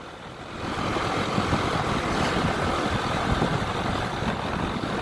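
Honda ADV 150 scooter on the move: its single-cylinder engine and road noise swell about a second in, then run on steadily.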